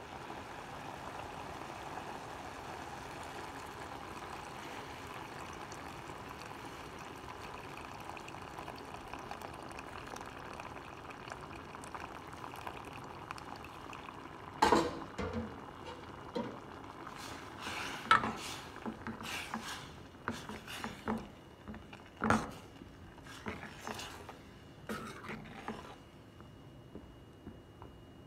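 A pan of drumstick and coconut curry makes a steady liquid hiss on the stove. About halfway through, a steel ladle starts knocking and scraping against the pan as the curry is stirred, with a string of sharp clanks.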